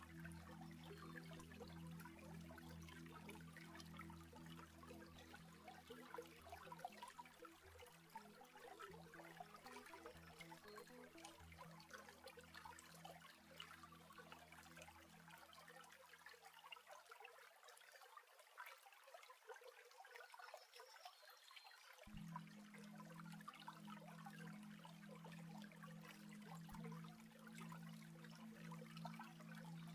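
Faint, steady trickling of a running water stream.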